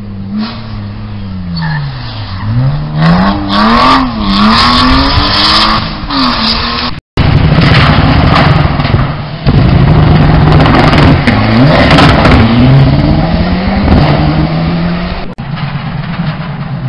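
Rally car engine revving hard as it approaches, the note climbing and dropping again and again through gear changes and growing louder. The sound breaks off abruptly about seven seconds in and again near the end, with a loud stretch of hard-running engine in between.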